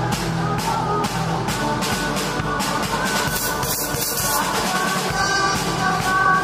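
Amateur rock band playing live together: drum kit with cymbals struck about twice a second, electric bass, acoustic and electric guitars and keyboard. A longer cymbal wash comes about three seconds in.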